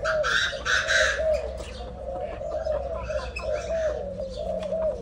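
Chinese francolin calling: a steady run of short, low, down-curving notes about two a second, with a few louder, higher calls in the first second.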